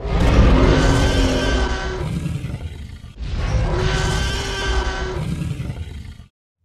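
Tyrannosaurus rex roar sound effect, played twice back to back, each roar about three seconds long with a heavy low rumble under a drawn-out growling cry. It is the alarm that marks the countdown reaching zero.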